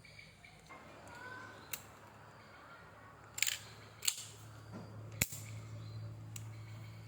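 An M4 CQB BB gun making sharp snapping clicks, about five of them at uneven intervals. A low steady hum comes in about halfway through.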